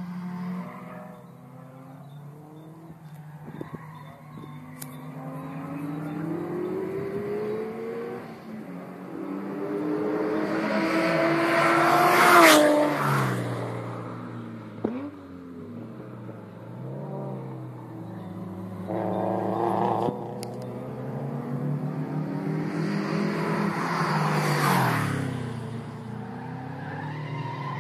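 Race cars lapping a circuit, their engines revving up through the gears as they approach. The loudest car passes close about twelve seconds in, its pitch dropping sharply as it goes by. A second close pass comes near the end.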